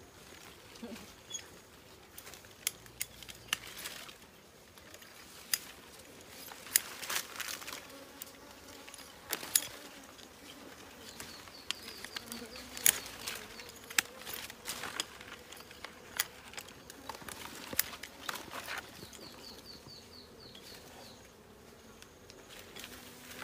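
Bees buzzing around a wild honey hive, with many scattered sharp clicks and snaps. A short high chirping trill comes twice, about halfway through and near the end.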